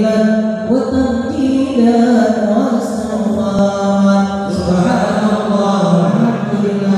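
Sholawat chanting: men's voices singing a slow Islamic devotional melody in long held notes that glide from one pitch to the next.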